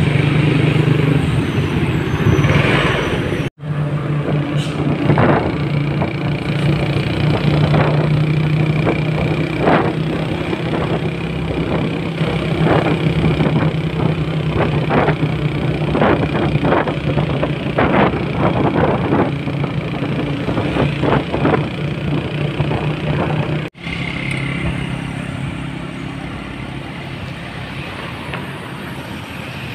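Heavy MAN truck's diesel engine running at a low, steady pace while it hauls a multi-axle low trailer, with irregular clicks and knocks over the hum. The sound cuts off abruptly twice, and after the second cut only fainter, even traffic noise remains.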